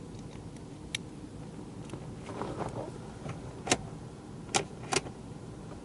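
Sharp clicks and handling noise as a replacement turn-signal relay on a 1996 Ford Explorer is fitted and tried. One click comes about a second in, rustling follows, then three more clicks at uneven intervals. There is no regular flasher ticking among them.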